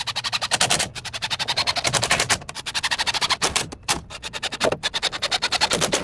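A rapid series of sharp clicks or taps, about a dozen a second, in runs broken by short pauses.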